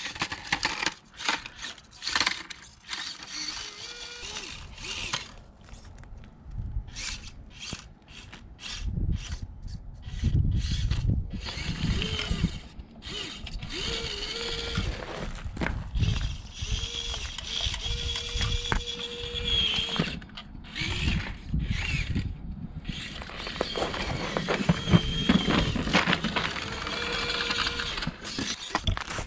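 Orlandoo 1/32 Toyota Tundra micro RC crawler's small brushed gear motor whining in short stop-start runs, its pitch rising and falling with the throttle, with gravel clicking and crunching under the tyres.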